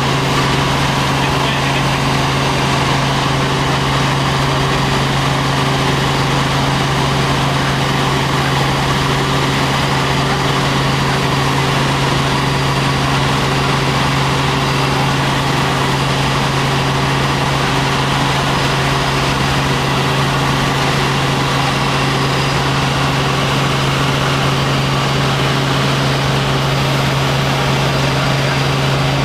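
Helicopter in flight: loud, steady engine and rotor noise with a constant low hum that does not change.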